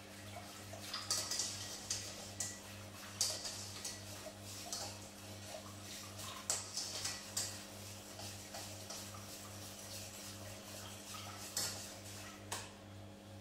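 Wire whisk scraping and clinking against a stainless steel saucepan in irregular strokes, beating melted butter, cornflour and milk together for a béchamel. A low steady hum runs underneath.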